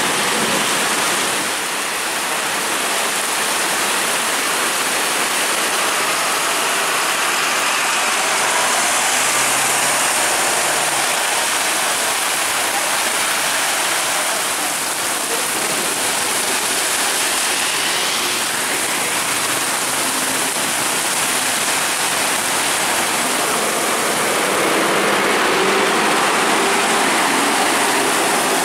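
Heavy rain pouring down in a thunderstorm: a steady, loud hiss of rain on the road and surfaces. Under it, city buses' engines and their tyres on the flooded road are faintly heard as they pull away.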